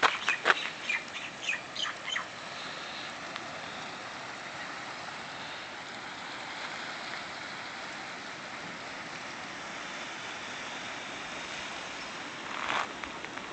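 Footsteps crunching on a gravel and lava-rock path at the start, with a few short bird chirps in the first two seconds. After that a steady outdoor hiss of wind and distant water, with one more scuff near the end.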